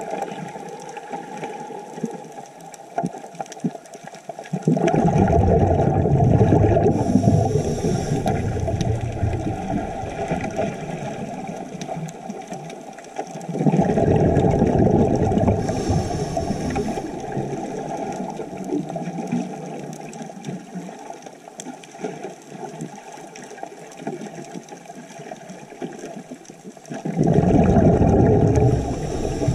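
Muffled underwater water noise, swelling loudly three times (about five seconds in, near the middle and near the end) with a quieter wash in between.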